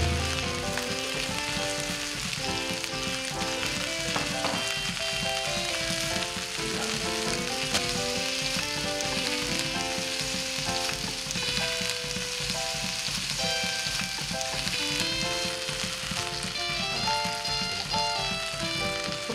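Food sizzling and frying in a pan, with occasional stirring, under light background music that plays a simple stepped melody.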